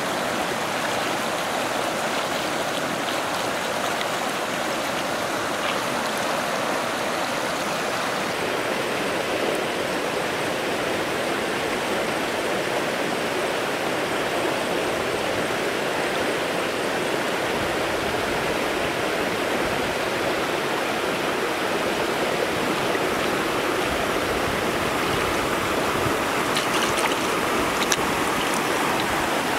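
Shallow rocky stream flowing, a steady rush of water, with a couple of brief splashes near the end as hands or feet break the surface.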